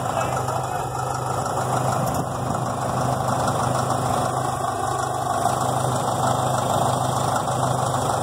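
Caterpillar D7E bulldozer's diesel engine idling steadily.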